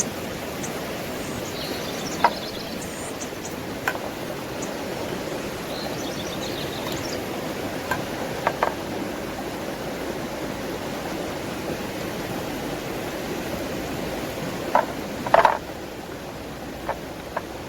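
Steady rushing noise with several short, sharp knocks and clicks scattered through it and faint high chirps in the first several seconds; the rushing drops off suddenly about sixteen seconds in.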